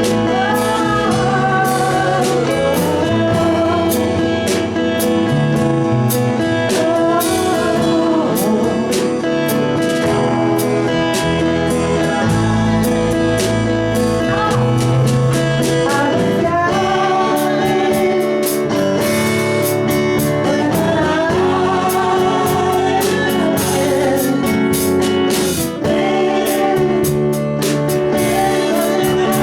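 A band playing a song: a voice singing a melody over guitar chords.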